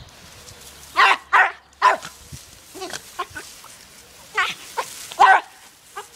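Jack Russell terrier barking in a string of short, sharp yaps, three in quick succession about a second in and two more loud ones near the end, excited barking as it snaps at the water jet from a garden hose.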